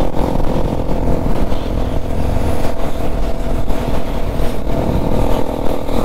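Bajaj Pulsar NS200's single-cylinder engine running at a steady cruise, heard from the rider's seat with wind buffeting the microphone.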